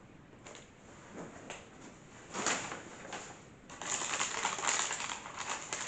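Paper takeaway bag rustling and crinkling as a hand rummages inside it. There is a short burst a little over two seconds in, then a longer, louder spell of crinkling from nearly four seconds in.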